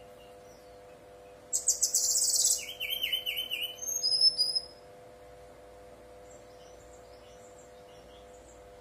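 Brown-chested jungle flycatcher (sikatan rimba dada coklat) singing one loud burst of about three seconds, starting about a second and a half in: a fast, high, buzzy trill, then quicker lower notes and short falling whistles. A few faint chirps follow over a steady faint hum.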